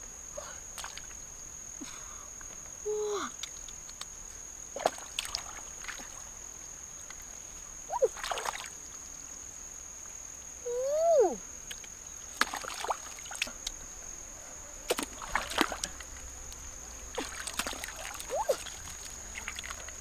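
Hand splashing and dabbling in shallow stream water, in short separate splashes. A few short pitched calls that bend up and down come through, the loudest about eleven seconds in, over a steady high-pitched whine.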